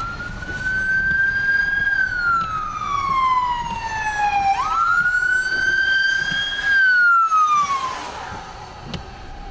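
Ambulance siren wailing, heard from a moving car with road noise underneath. Each cycle jumps up quickly in pitch, holds high, then falls slowly, and it goes round twice, about four and a half seconds per cycle.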